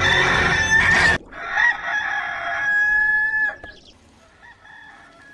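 Rooster crowing: the Hollywood Edge 'Rooster 2 Crow' stock sound effect. One crow cuts off about a second in, then a second long crow holds a steady pitch and stops about three and a half seconds in.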